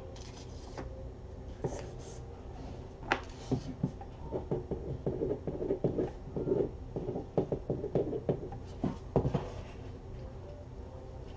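Trading cards and their box being handled on a tabletop: small irregular taps, rubs and clicks, busiest in the second half, over a steady low hum.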